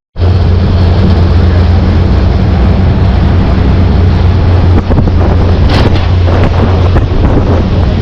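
Tour boat's motor droning steadily under loud wind buffeting the microphone and rushing water.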